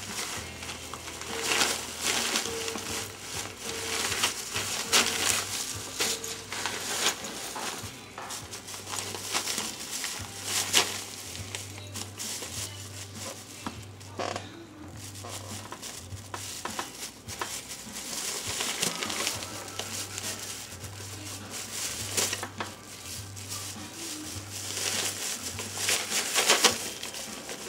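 Plastic treat bag crinkling and rustling in irregular bursts as a husky chews, mouths and tugs at it, trying to tear it open to get at the treats inside.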